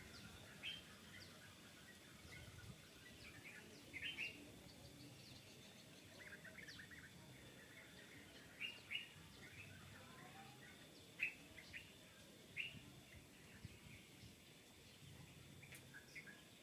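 Faint birds chirping, short high calls scattered irregularly, a few a little louder than the rest.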